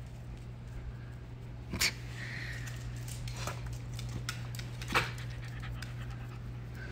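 A dog panting, with small claw ticks on a tile floor from a corgi puppy walking, and two sharp knocks about two and five seconds in, over a steady low hum.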